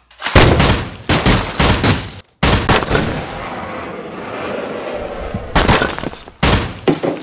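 Gunfire-like bangs: a rapid run of shots for about two seconds, then a steady rushing noise for about three seconds, then a few more shots near the end.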